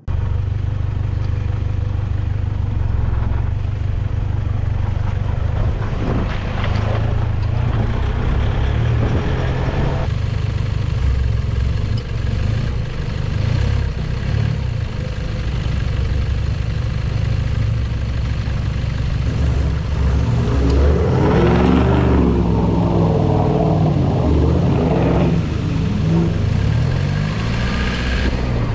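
A four-wheel drive's engine pulling along an off-road track, its note shifting with the throttle. About two-thirds of the way through it revs up and down repeatedly under load.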